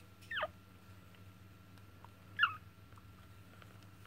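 Yorkshire terrier puppy giving two short high-pitched whimpers: a falling cry soon after the start and a sharper, louder squeak about two and a half seconds in, over a faint low hum.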